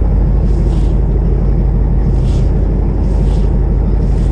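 A boat engine running with a steady low hum, and a faint hissing swish recurring about once a second above it.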